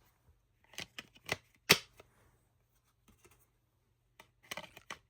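4K Blu-ray discs and their Steelbook case being handled: scattered sharp clicks and taps, the loudest just under two seconds in, then a quick run of clicks near the end.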